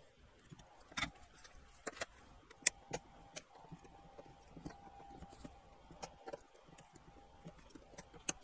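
Scattered small clicks and ticks from handling a circuit board, with a few sharper snips as flush cutters trim the leads of newly fitted capacitors; the sharpest is about two and a half seconds in.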